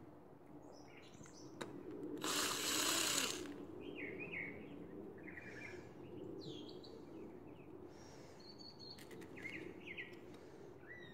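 A cordless drill/driver runs for about a second, a couple of seconds in, spinning up and back down as it backs out a Loctited Phillips screw from the motorcycle cylinder head. Small birds chirp throughout.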